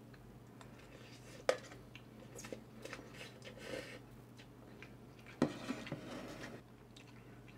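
Metal chopsticks clicking against a metal pot, twice sharply, and a man faintly slurping and chewing a mouthful of dry stir-fried instant noodles.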